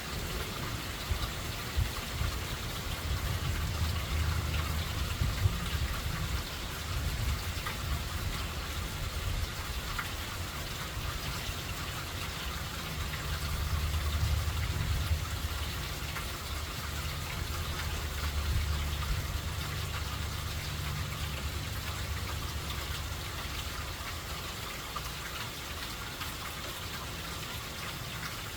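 Steady hurricane rain falling and pattering, with a low rumble underneath that swells and fades a few times.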